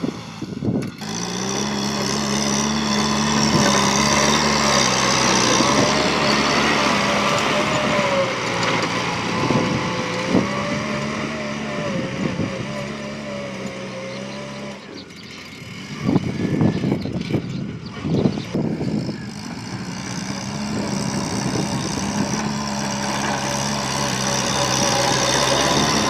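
Kubota tractor's diesel engine running steadily under load while pulling a disc plow through the soil. About midway, the engine drops away for a few seconds of rough, gusty noise, then comes back.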